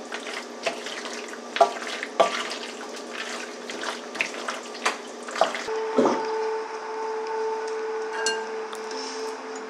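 Wooden spoon stirring and tossing saucy penne in a metal pan, with irregular clacks of the spoon against the pan. About six seconds in, soft music with long held notes comes in.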